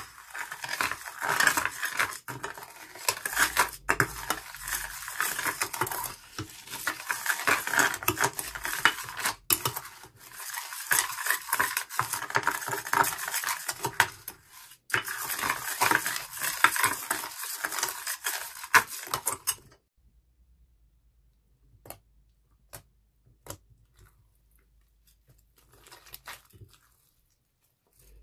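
White plastic spoon stirring a wet, glittery slime mixture and scraping it around a glass baking dish: a dense, wet scraping full of small clicks, broken off briefly three times. About twenty seconds in it stops, leaving only faint scattered clicks as the slime is handled.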